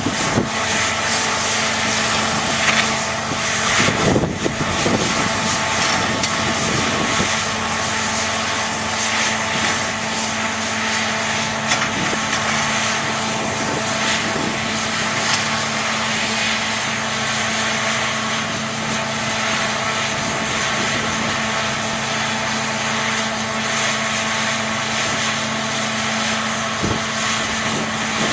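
Heavy earthmoving machinery's diesel engine running steadily at working revs, with a brief louder patch about four seconds in.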